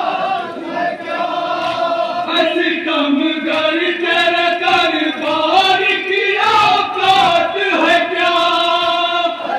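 Group of men chanting a noha, a Muharram lament, in unison, with long held, wavering notes, and a few sharp slaps of matam chest-beating.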